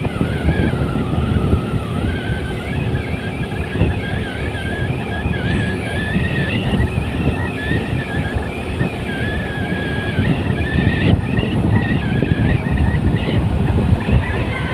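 Vehicle driving along a road: steady engine and road rumble, with a thin wavering whine riding above it.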